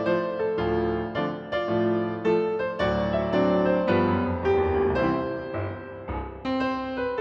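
Background music: a gentle piano tune, with a note or chord struck about every half second.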